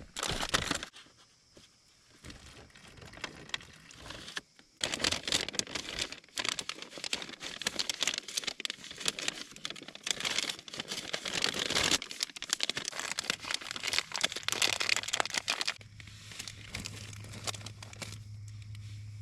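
Crinkling and rustling of plastic MRE packaging and the flameless ration heater bag as they are handled, coming in long spells. A low steady hum comes in near the end.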